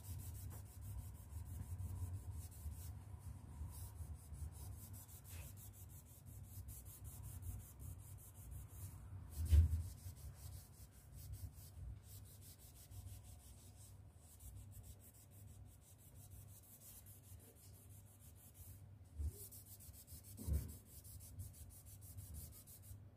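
A damp cloth scrubbed back and forth against a painted wall in fast strokes, wiping off crayon marks. A few dull thumps break through, the loudest about ten seconds in and two more near the end.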